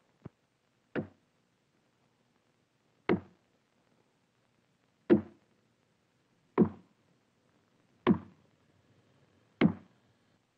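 A series of sharp single knocks, seven in all, spaced about one and a half to two seconds apart and getting louder, with silence between them.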